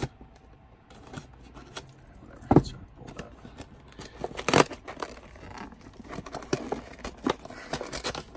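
Cardboard action-figure box being slit open with a pocket knife and its flap worked open by hand: scattered scrapes, taps and crinkles, with two louder knocks about two and a half and four and a half seconds in.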